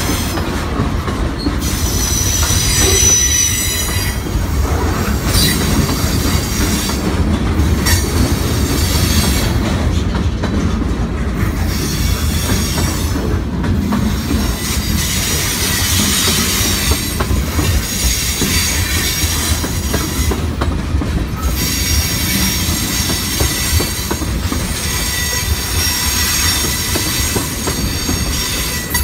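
Freight train of boxcars and tank cars rolling past at close range: a steady, loud rumble of wheels on rails, with high-pitched wheel squeal that comes and goes.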